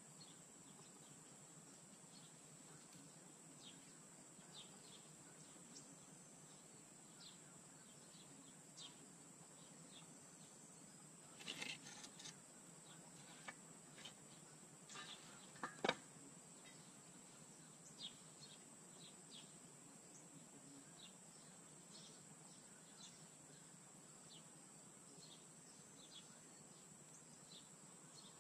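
Near silence: faint outdoor ambience, a steady high-pitched hum with scattered short chirps. Around the middle there is a cluster of light clicks and knocks, the sharpest a little past halfway.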